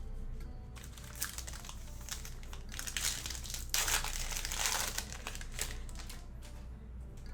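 Foil wrapper of a Panini Prizm football hobby pack crinkling as it is handled and opened, in irregular bursts that are densest in the middle.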